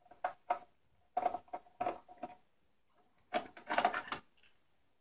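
Plastic parts of a Pelco dome security camera clicking and rattling as its inner camera module is handled and worked loose from the housing. The clicks come in three short clusters.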